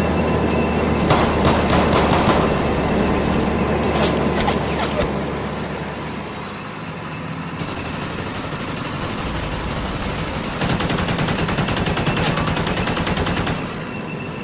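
Heavy gunfire: many shots in quick automatic bursts that overlap one another. A long run of rapid, evenly spaced shots comes in the second half, under a steady low drone.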